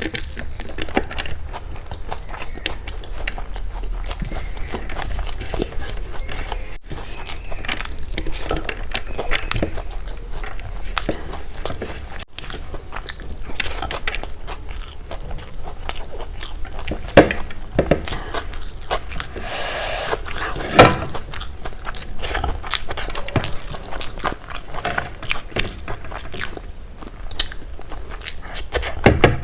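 Close-miked eating: chewing and biting with wet mouth sounds and occasional crisp crunches, a few louder bites standing out about a third and two thirds of the way through.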